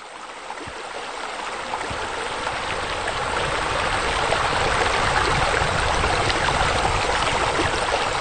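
Water running and splashing into a garden pond, a steady rushing that swells over the first few seconds, then holds level.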